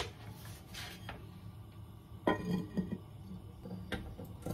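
Ceramic lid set onto a Kamado-san clay donabe rice pot: a sharp clink with a short ring about two seconds in, then a few lighter knocks as it settles, and one more click near the end.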